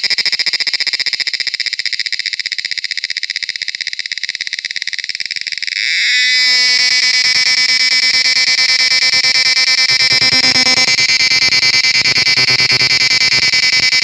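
A cicada singing: a high, fast-pulsing buzz that about six seconds in grows louder and takes on a fuller, lower tone, then holds steady.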